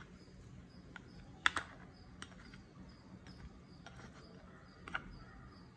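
A few light clicks of a spoon and lid against a porcelain bowl as cooked rice is scooped into it and covered; the sharpest is a double click about a second and a half in.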